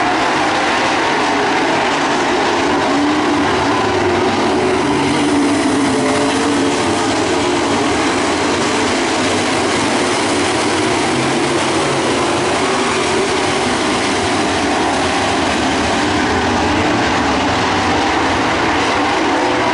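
A field of Pro Stock dirt-track race cars' V8 engines running hard as the pack races around the dirt oval, a loud, steady, unbroken engine roar.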